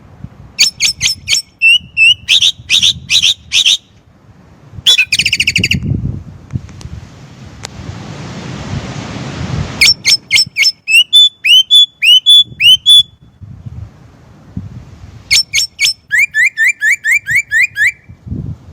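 Chinese blackbird calling in bursts of sharp, rapid notes with pauses between, some bursts a quick run of falling notes. In the middle a steady hiss builds for about four seconds and cuts off suddenly.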